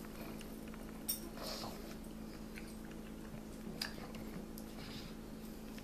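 Pug snuffling and licking at the floor after a donut, faint, with a few sharp clicks over a steady low hum.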